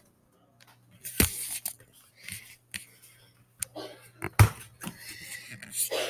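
Camera handling noise: rustles and scattered knocks, the loudest a sharp knock a little over four seconds in, over a steady low hum that starts about half a second in.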